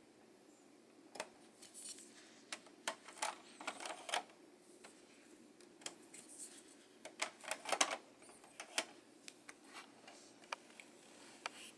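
LEGO plastic ramp pieces clicking and clattering as they are handled and slid into their storage slot under the truck's flatbed: a string of irregular small plastic clicks, busiest about a third of the way in and again about two thirds of the way in.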